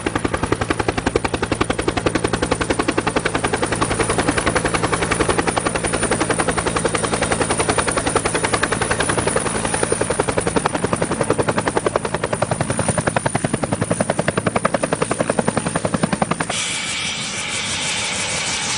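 Helicopter running, with a fast, steady rotor-blade chop and a high turbine whine. About sixteen seconds in, the chop cuts off abruptly and a smoother, even engine rush takes over.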